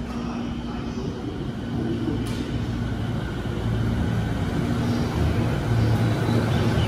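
JR 209 series electric commuter train pulling out of the platform, its motors and wheels rumbling louder as it gathers speed past, over a steady hum. There is a sharp click about two seconds in.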